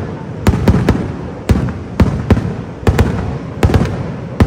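Fireworks shells bursting in quick succession: about a dozen sharp bangs, several a second, each trailing off in a rumbling echo.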